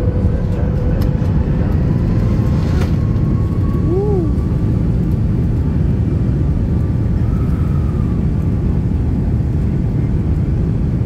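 Cabin noise inside a Boeing 737 MAX 8 moving on the ground: a steady low rumble from the engines and the airframe rolling, with a faint steady whine above it.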